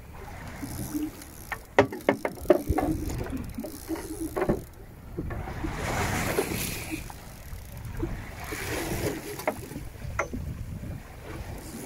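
Choppy sea sloshing and splashing against a small boat's hull, with a quick run of sharp knocks and clicks about a second and a half in and a few more later.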